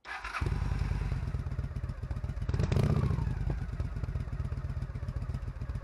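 Motorcycle engine running under way, a steady rapid low pulsing, with a brief swell in loudness about three seconds in.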